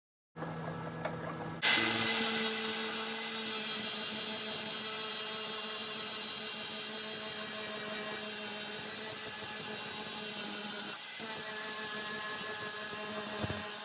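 Power tool running steadily against the work with a loud grinding hiss, starting abruptly about a second and a half in. It cuts out for a moment about eleven seconds in, then runs again.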